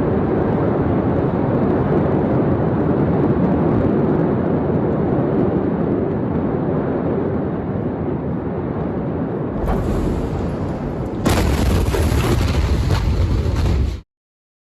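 Loud, dense rumble and roar from footage of the ammonium nitrate explosion at a port warehouse. The noise shifts in character twice in the last few seconds, then cuts off suddenly.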